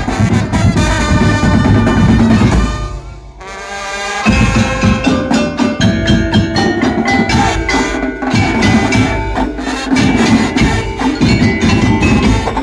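Madurese ul daul (tong-tong) percussion ensemble playing: rapid strokes on wooden slit drums and tuned struck percussion over drums. The playing drops away briefly about three seconds in, leaving a held tone, then comes back in full.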